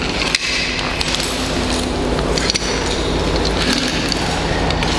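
Metal rope-access hardware (carabiners, pulleys and a hand ascender) clinking and clicking repeatedly as rope is worked through a haul system, over a steady rustling noise.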